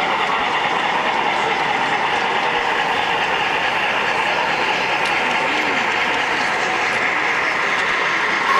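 O gauge model Norfolk and Western steam locomotive and passenger cars rolling along three-rail track, a steady running clatter of wheels over the rails, over a constant background din.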